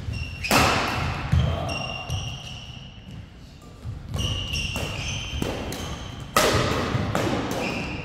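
Badminton doubles rally: rackets striking the shuttlecock in a quick exchange, with a sharp hit about half a second in and the loudest smash near the end. Between the hits, court shoes squeak on the floor and footfalls thud.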